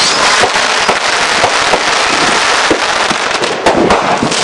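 Fireworks going off in a dense run of overlapping bangs and crackling, with no pause between them.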